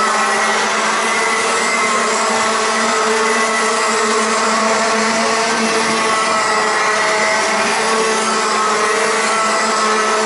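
A field of Rotax Max 125 cc two-stroke racing karts running around the circuit together, their overlapping engine notes rising and falling as the karts accelerate and brake, under a steady drone.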